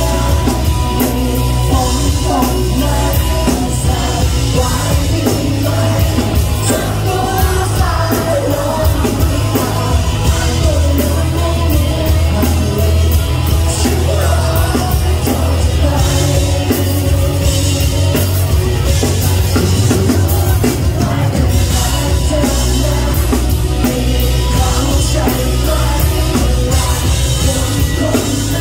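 Live rock band performance: a male singer singing into a microphone over drums and band, loud and continuous, recorded from within the audience.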